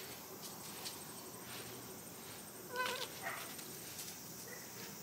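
A pet's short call about three seconds in, followed by a fainter second call that falls in pitch.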